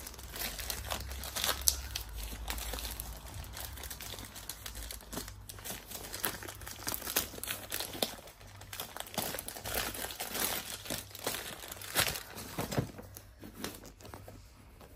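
Plastic poly mailer bag crinkling and rustling as it is pulled off a cardboard box, in irregular bursts with a few sharper crackles. It grows quieter near the end.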